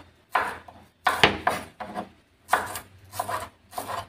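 Chef's knife slicing shallots on a wooden cutting board, each stroke ending in a short knock of the blade on the board, at an uneven pace of about two to three cuts a second.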